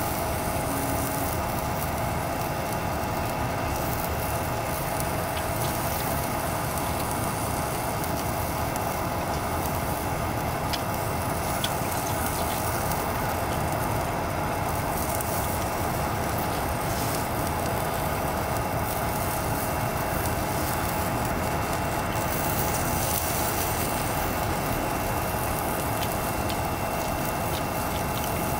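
Single-burner gas canister stove running steadily under a pan of sausages and fries, the food frying in it; a constant hiss with a few faint ticks.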